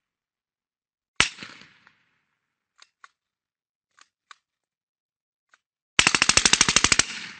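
Sten Mark 2 9mm submachine gun firing: a single shot about a second in with a short echo, a few faint clicks, then a rapid burst of fully automatic fire lasting about a second near the end.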